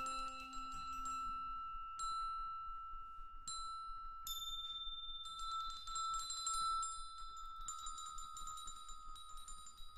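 Contemporary chamber music for flauto d'amore and mallet percussion: one long, steady high tone is held while ringing metal-bar strikes sound a few times, then a rapid tinkling of metal bars fills the second half.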